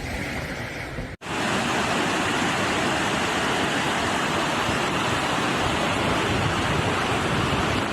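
Steady rushing noise; about a second in it cuts off abruptly and gives way to a louder, even rush of fast-flowing floodwater.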